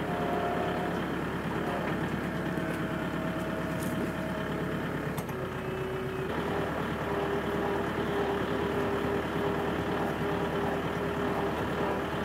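Compact farm tractor's diesel engine running steadily as it drives along. A steady whine rides over it and drops to a lower pitch about five seconds in.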